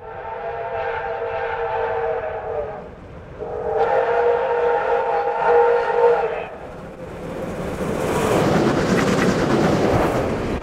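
Two long blasts on a Victorian Railways R class Hudson steam locomotive's whistle, each sounding several steady notes together. From about seven seconds in, the rising rush of the double-headed steam train running past takes over and stays loud.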